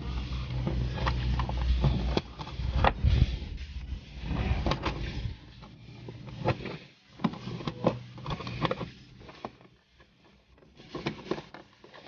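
Irregular clicks, knocks and rustles of plastic being handled inside a car, as a dash-cam cable is tucked away behind the interior trim. A low hum runs under the first two seconds.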